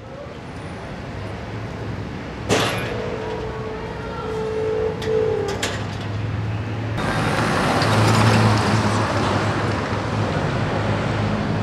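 Street traffic noise with vehicles running and a steady low hum. There is a sharp knock about two and a half seconds in, then a steady mid-pitched tone for a few seconds. About seven seconds in the noise abruptly gets louder and fuller.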